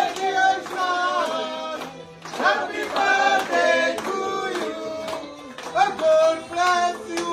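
Singing with music, in phrases of held notes with short breaks between them, and hands clapping along.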